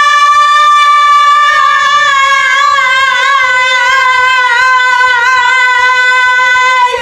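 A girl's voice singing one long, loud, high note. It wavers in the middle and sinks slightly in pitch before cutting off right at the end. A faint steady beat runs underneath.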